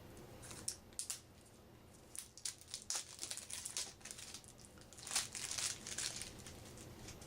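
Plastic shrink wrap crinkling and crackling as a sealed deck of game cards is unwrapped by hand, in three bouts of rustling.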